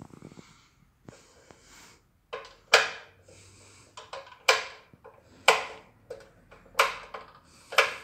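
Rotary power selector switch on a Solac oil-filled radiator heater clicking as it is turned through its positions. There are sharp clicks about one a second, starting a couple of seconds in.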